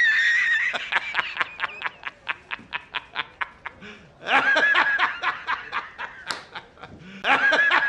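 High-pitched wheezing laughter. Three times a squealing cry breaks into a fast run of short, breathy gasps, about five a second, that fade out.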